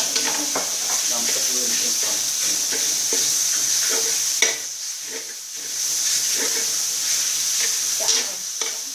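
Chopped garlic and pork sizzling in hot oil in a metal wok while a metal spatula stirs and scrapes it, with repeated clicks of the spatula on the pan. A sharp clank about halfway through, after which the sizzle briefly dies down before picking up again.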